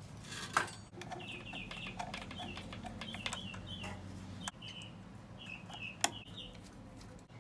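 Piezo pilot igniter on a Bradford White ICON gas water heater control pressed repeatedly to light the pilot, giving a series of sharp clicks, two of them loudest: near the start and about six seconds in. Short high chirps from an animal repeat through most of it.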